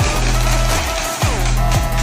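Background music with a deep, heavy bass beat whose bass hits drop in pitch, over sustained higher tones.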